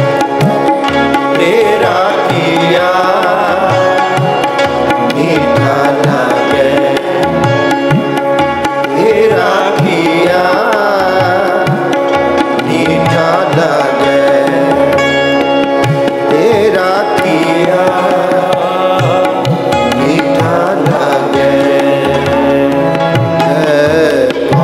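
Gurbani kirtan: voices singing a shabad over a held harmonium accompaniment, with tabla strokes keeping a steady rhythm throughout.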